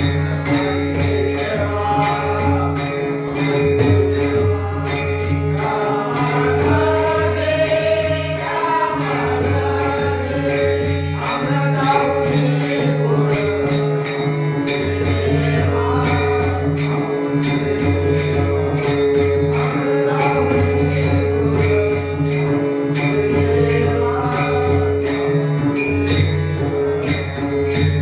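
Marathi devotional bhajan: voices singing over a held drone, with a steady beat of jingling hand cymbals and a low drum. The voices stand out most clearly from about six to thirteen seconds in.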